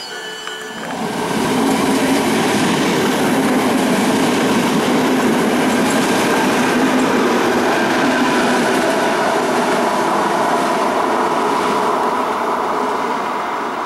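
High wheel squeal from the previous train stops about a second in. It gives way to a ČD class 471 CityElefant double-deck electric unit running past: a loud, steady rumble of wheels on rail with a held droning tone, easing a little near the end as the unit draws away.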